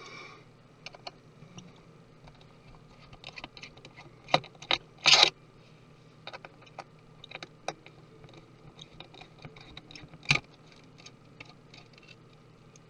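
Small metal clicks and taps from hand tools and screws against a MacBook Pro's aluminium case, irregular and light, with a few sharper knocks a little over four seconds in, just after five seconds and again about ten seconds in.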